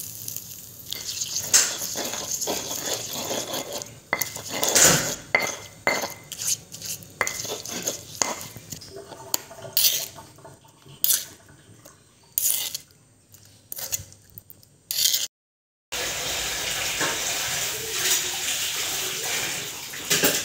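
A metal utensil scraping and knocking on a stone mortar as oily chilli sambal is scooped out, in irregular sharp scrapes and clinks. After a short break near the end comes a steady hiss of running water.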